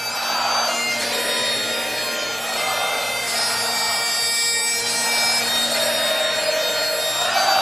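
Instrumental music: a steady held drone note under a melody of sustained higher notes.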